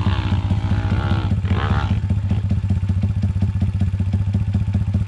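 Four-stroke pit bike engine idling close by, an even low thudding beat. Over the first two seconds a higher, wavering engine note rises and falls as a dirt bike climbs the hill at a distance.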